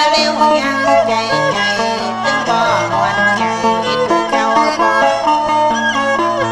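Northern Thai so-style folk music: a bowed fiddle and a plucked lute play a melody over a steady low drone.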